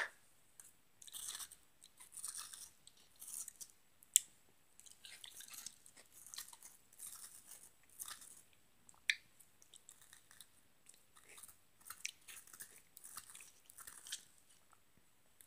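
Quiet, intermittent chewing and crunching with scattered small clicks; the sharpest clicks come about four and nine seconds in.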